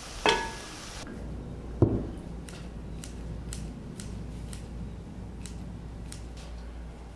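Ground beef sizzling in a pan with a ringing knock against the pan, cut off about a second in; a dull thump follows. Then kitchen scissors snipping green onion stalks, a steady run of short snips about two a second.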